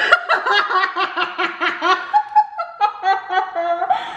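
A woman and a man laughing hard, in quick repeated ha-ha pulses that slow down after about two seconds.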